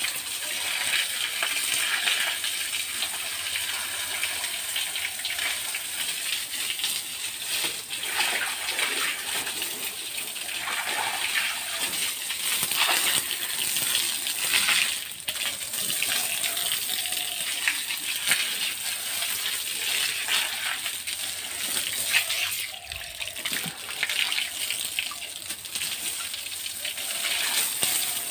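Water gushing and splashing steadily as a pig pen floor is washed down, with a few short knocks.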